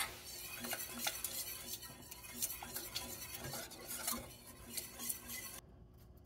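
Wire whisk stirring quickly in a stainless steel saucepan, clinking and scraping against the pan's sides and bottom as heavy cream is whisked into a thickening flour-and-stock gravy. The whisking stops about five and a half seconds in.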